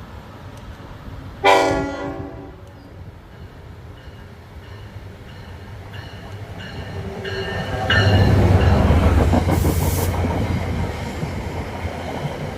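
Unrestricted Nathan K5LLB five-chime air horn on an NJ Transit ALP-45DP locomotive sounding one short honk about a second and a half in. From about eight seconds the locomotive and its train pass with a loud rumble and rail clatter that slowly fades.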